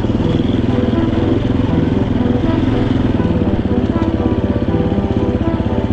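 Dirt bike engine running at low, fairly steady revs, its firing pulses rapid and even, heard up close from the bike itself.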